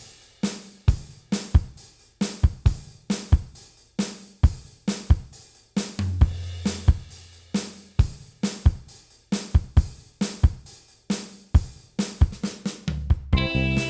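Background music: a steady drum-kit beat of kick, snare, hi-hat and cymbal, with a held bass note about six seconds in. Pitched instruments join the drums near the end.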